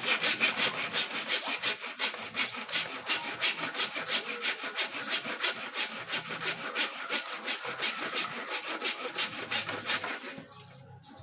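Hand saw cutting with quick, even strokes, about five a second, growing gradually quieter and stopping about ten seconds in.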